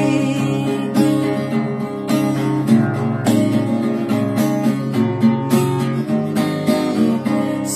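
Background music: an acoustic guitar strums through an instrumental passage of a Tagalog ballad, with no singing.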